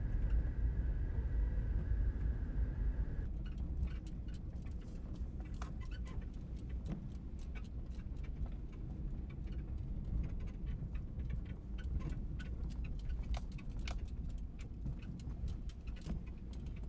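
Jeep driving on a back mountain road: a steady low engine and road rumble, with a faint high whine for the first three seconds or so. After that come a constant scatter of small clicks and rattles.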